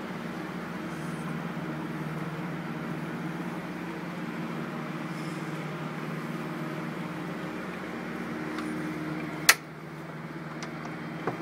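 A steady low mechanical hum, with one sharp click about nine and a half seconds in and a fainter click near the end.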